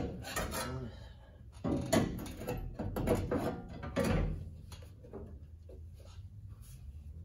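A sheet-metal outer rocker panel knocking and scraping against a 1969 GMC pickup's body as it is pushed into place for a test fit, catching on something that keeps it from seating. The knocks come mostly in the first four seconds, then it goes quieter.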